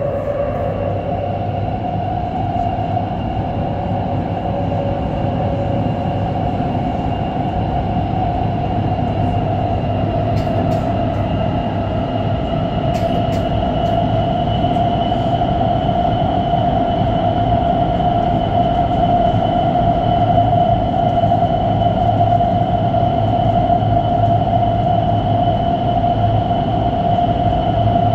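Qingdao Metro Line 2 train running between stations, heard from inside the carriage: a steady rumble with a whine that rises slightly in pitch as it goes.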